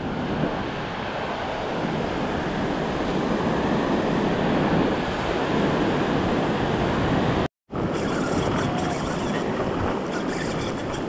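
Ocean surf breaking and washing over the shallows of a sandy beach, a steady rush of water. The sound cuts out for a split second about two-thirds of the way through, then the surf carries on with a few faint clicks.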